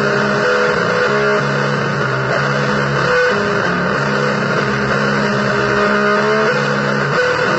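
Noisy, heavily distorted electric-guitar blues: held low notes with shorter higher notes moving above them, all over a thick, constant wash of noise.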